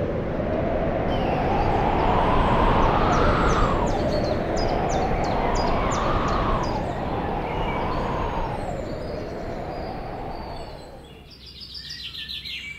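A whooshing noise that rises and falls in pitch in slow waves about every three seconds, fading out near the end, with birds chirping.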